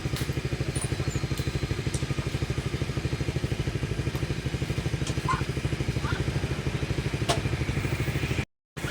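Maestro two-stroke chainsaw engine running steadily at low speed with an even, rapid pulse and no revving, with a few faint clicks; the sound drops out for a split second near the end.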